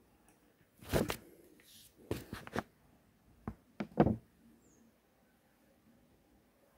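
A handful of short, faint taps and knocks of a stylus and hand on a tablet screen: one about a second in, a quick cluster around two seconds, and two more near four seconds, then quiet room tone.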